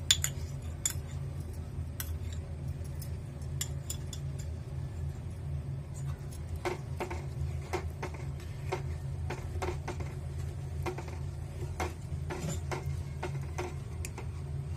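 Stainless steel ladle clinking and scraping against a steel saucepan while stirring lumps of jaggery in water, at about two clinks a second in the second half, over a steady low hum.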